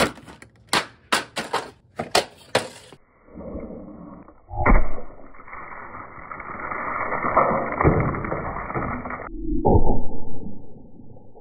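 Crinkling and rattling of a Funko Pop's cardboard box and plastic insert being handled and opened. Then a 16 lb sledgehammer smashes into the figure on gravel: one heavy impact and a long rough rush of scattering stones, heard slowed down and muffled, with another deep, slowed thud near the end.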